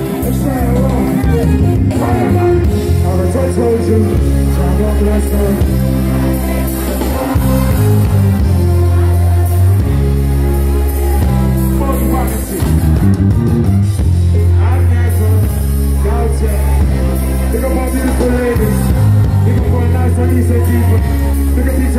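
Live reggae band playing loud through a concert PA, with deep bass notes and a singer's voice over the band.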